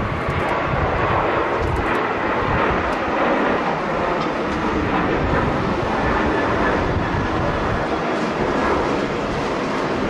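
Boeing 737-800's CFM56 jet engines at takeoff thrust, a steady roar as the airliner lifts off and climbs away. Gusty wind buffets the microphone underneath the roar.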